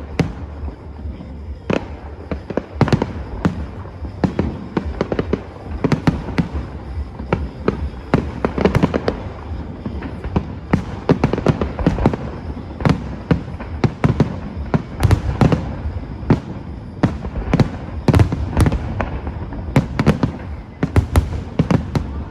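Aerial fireworks bursting in quick succession: a continuous string of sharp bangs and cracks, coming thicker and louder in the second half.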